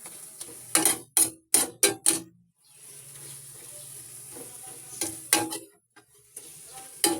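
Food sizzling in a frying pan while a cooking utensil stirs it. The utensil clatters against the pan in a quick run of strokes about a second in, again around five seconds, and once near the end.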